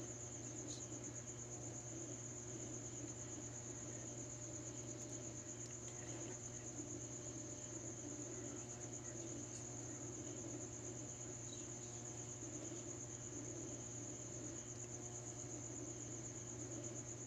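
Crickets trilling, a high continuous note that holds steady, over a steady low hum.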